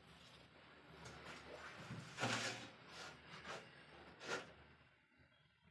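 Hands patting and pressing large ceramic wall tiles into their adhesive, giving a few faint, short knocks and rubs on the tile faces.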